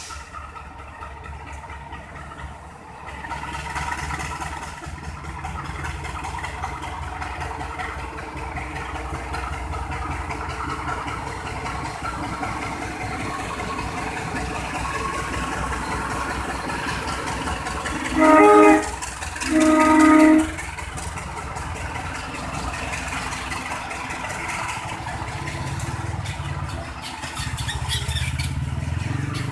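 CC 201 diesel-electric locomotive's engine running as it hauls a passenger train slowly past, with the train rumbling over the rails. Two short train-horn blasts, a little over a second apart, come about two-thirds of the way through, and a deeper engine rumble builds near the end.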